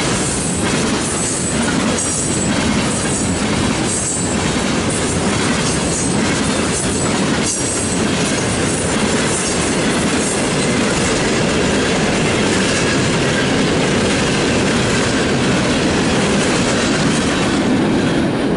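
Freight train cars rolling past at trackside: a steady rumble of steel wheels on rail. Through the first half, regular clicks come from the wheels crossing rail joints, then the sound smooths into an even roll.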